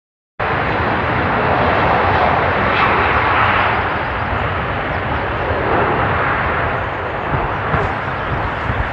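Boeing 757's jet engines, a loud steady rush of noise that cuts in abruptly just under half a second in.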